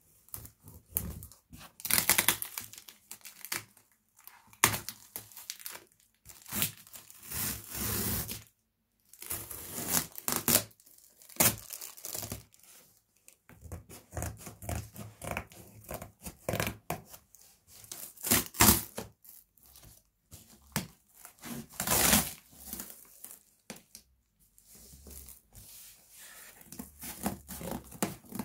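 Scissors cutting through brown packing tape and the cardboard of a shipping box, with tape and cardboard tearing and rasping in irregular spells broken by short pauses, some snaps sharp and loud.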